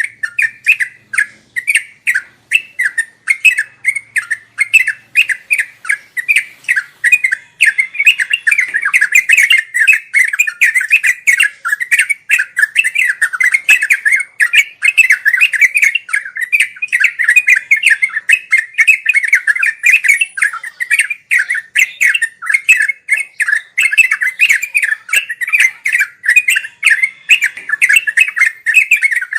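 Yellow-vented bulbul (trucuk) singing in a continuous, rapid run of bubbling, warbling notes. The phrases come a few a second at first and run almost without a break from about a third of the way in.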